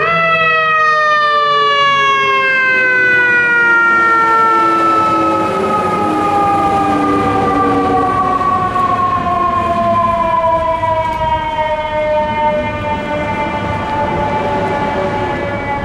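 Fire engine's mechanical siren spun up sharply, then winding down in one long, slowly falling wail, with the truck's diesel engine rumbling underneath.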